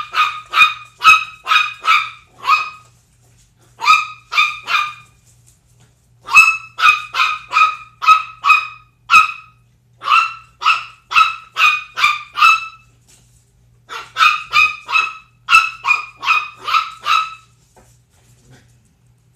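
A 10-week-old Chihuahua puppy barking: high-pitched yips in bursts of several, about three a second, with short pauses between bursts, stopping about 17 seconds in.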